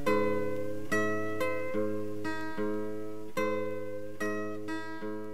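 Background music: a guitar picking out notes and chords, each note dying away after it is struck, the music slowly growing quieter.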